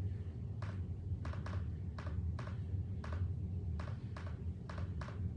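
A steady low hum with light, irregular clicks, about two a second.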